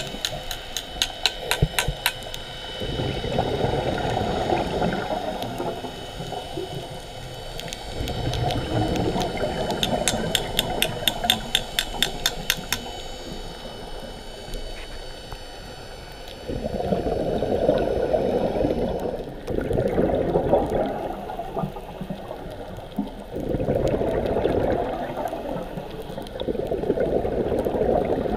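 Scuba diver breathing through a regulator underwater: bursts of exhaled bubbles rush out every few seconds, with a thin, fast-ticking hiss twice between them.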